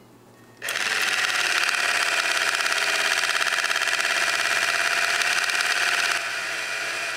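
Battery-powered toy stand mixer switched on about half a second in, its small motor and spinning beater whirring steadily as it stirs slime in the bowl. About six seconds in the whir drops to a quieter level and carries on.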